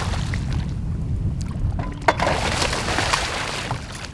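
A hooked catfish splashing and thrashing at the water's surface beside a boat, a burst of splashing starting about two seconds in, over a steady low rumble of wind and choppy water.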